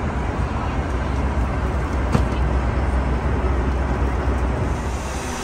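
Steady in-flight cabin noise of a Boeing 737 MAX 8: a low rumble of engines and airflow under an even hiss, with one light click about two seconds in.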